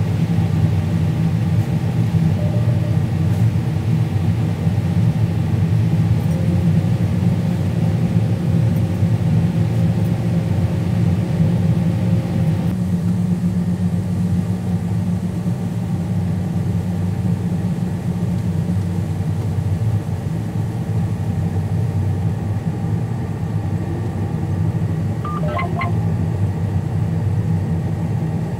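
Combine harvester running steadily while cutting: a loud, low, even engine and machinery hum, with a short high chirp near the end.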